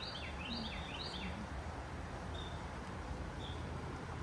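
A songbird singing a quick run of repeated, down-slurred notes in the first second and a half, then a couple of single notes, over a steady low background rush.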